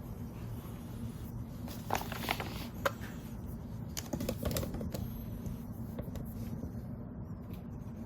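Light clicks and taps of handling as a beetle larva is set on a scale to be weighed: a few sharp clicks about two to three seconds in and a cluster of taps around four to five seconds. A steady low hum runs underneath.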